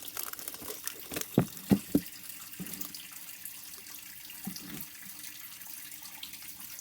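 Kitchen tap running into a sink with a steady hiss, and three sharp clunks of things being handled in the sink about a second and a half to two seconds in, with a few softer knocks later.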